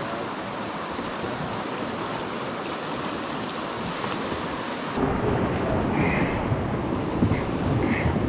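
Rushing river water of a whitewater rapid, a steady hiss with no tones. About five seconds in it becomes louder and deeper, with wind buffeting the microphone.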